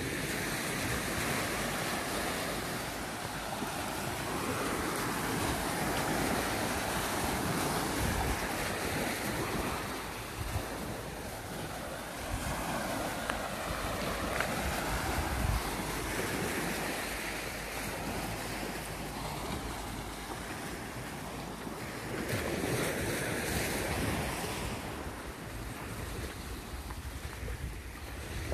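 Small waves breaking and washing up a sandy shore in slow, swelling surges, with wind buffeting the microphone.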